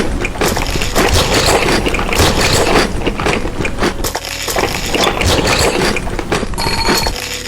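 Loud close-miked eating sounds: dense, irregular crunching and chewing clicks, a mukbang eating noise.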